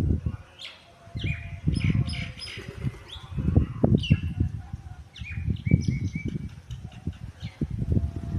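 Mynas calling: many short chirps and squawks in quick succession, over repeated low thumps and rumbles.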